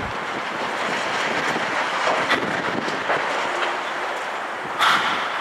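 Demolition of a concrete building by hydraulic excavators: a steady grinding clatter of breaking concrete and rubble, with sharper crashes, the loudest near the end.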